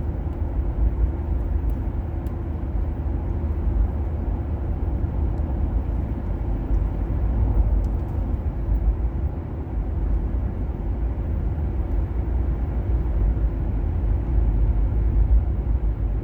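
A car driving along a road, its engine and tyres making a steady low rumble.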